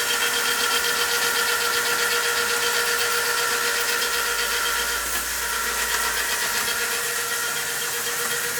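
A motor running steadily with an even, unchanging whine.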